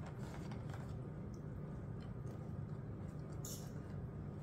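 Quiet room tone with a steady low hum, a few faint soft ticks, and one brief crisp rustle about three and a half seconds in.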